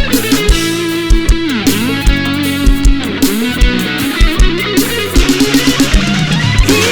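Live band playing an instrumental passage with no vocals: electric guitar lines with sliding, bent notes over bass guitar and a steady kick-drum beat.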